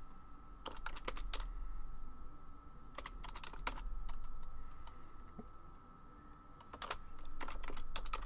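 Typing on a computer keyboard, entering an email address: three quick runs of keystrokes with short pauses between them, over a faint steady hum.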